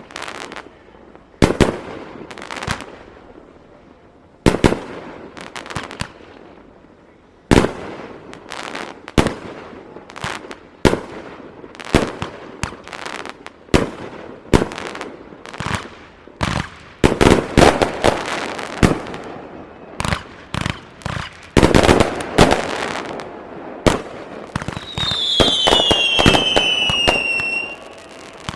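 Aerial fireworks bursting in a rapid, irregular barrage of sharp bangs that grows denser partway through, with a whistling firework falling in pitch near the end.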